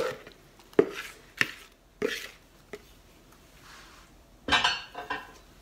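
A spoon knocking and scraping against a ceramic mixing bowl as thick quiche filling is pushed out into a baking dish: about five sharp knocks over the first three seconds, then a louder clatter near the end.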